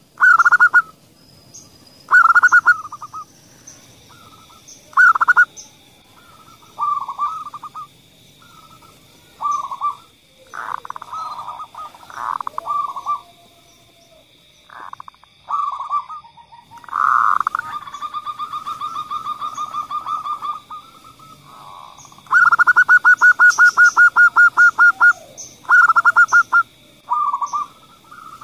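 Zebra doves (perkutut) cooing in short bursts of rapid staccato notes every second or two, with two long fast runs of even notes, the loudest about 22 seconds in.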